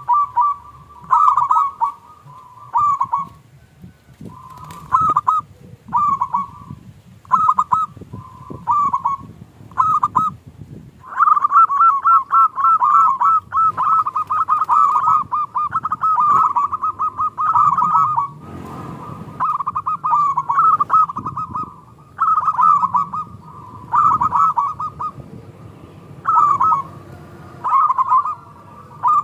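Zebra doves cooing: short bursts of quick, staccato notes repeated about once a second, with a longer unbroken run of overlapping calls in the middle.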